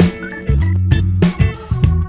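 Background music: an instrumental track with a steady beat and a strong bass line.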